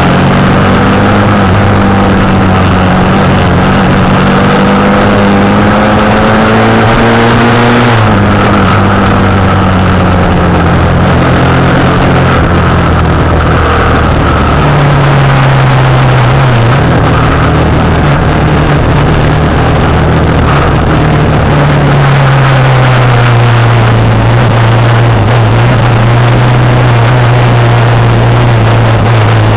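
Motorcycle engine running under way. Its pitch climbs steadily, drops suddenly at a gear change about eight seconds in, then holds fairly steady with smaller rises and falls, over a constant rush of wind and road noise.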